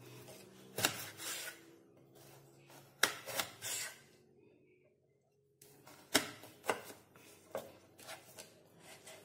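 Kitchen knife slicing through a peeled raw potato and knocking on the cutting board: a few sharp knocks early, a short silent gap in the middle, then a quicker run of cuts.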